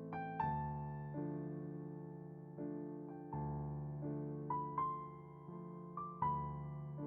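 Slow, gentle piano music: single notes and soft chords struck about once a second, each ringing and fading before the next.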